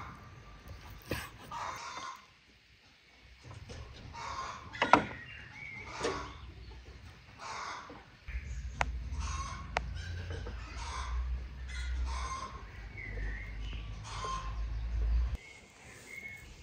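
Chickens clucking in short calls every second or so, with a few sharp clicks in between and a low rumble through the middle.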